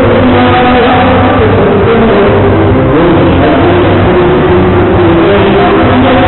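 Live gaúcho dance-band music recorded very loud, with held melody notes over a steady bass.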